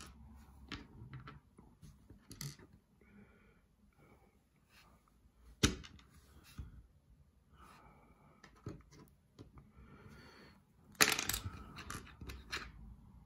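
Plastic building bricks being handled and pressed together: scattered light clicks, a sharp snap about five and a half seconds in, and a burst of rattling and rustling near the end.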